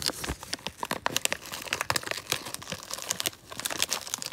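Plastic treat pouch crinkling and rustling as it is handled, a rapid, irregular run of crackles.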